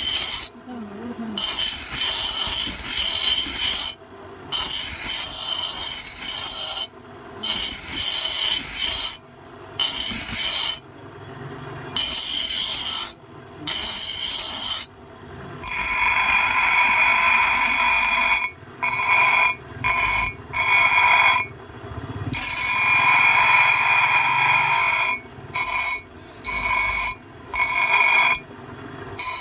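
Repeated strokes of a tool working a metal axe head, each lasting one to three seconds with a high ringing tone, broken by short pauses; the strokes run longer and fuller from about halfway through.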